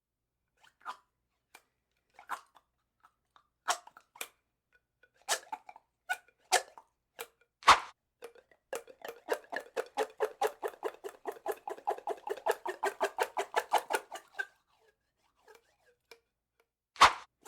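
Drinking straw squeaking: a string of short separate squeaks with a few sharp clicks. Then a rapid stuttering squeak at about nine pulses a second lasts some five seconds. A sharp click comes near the end.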